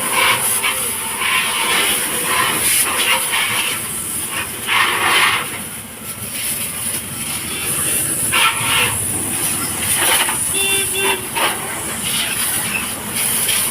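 Water jet spraying onto a car body: a steady hiss that surges irregularly every second or two as the spray moves over the panels.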